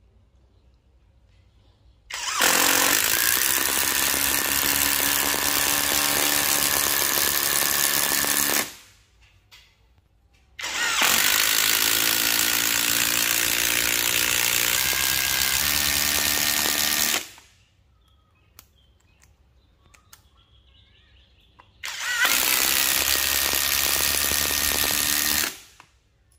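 HUKAN 150 Nm brushless cordless impact driver driving long screws into a wooden stump, in three runs of about six, six and four seconds, its motor and hammer mechanism running hard under load.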